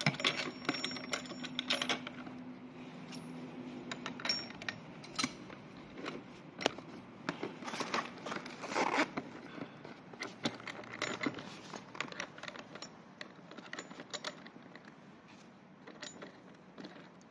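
Irregular metallic clicks, clinks and short scrapes as a silver seat post is pushed into a sprung scooter saddle's clamp and the clamp hardware is handled.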